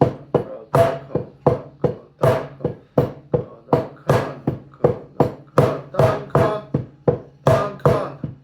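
Taiko bachi striking in a steady accent exercise, about three strokes a second with some strokes louder than others, each stroke ringing briefly.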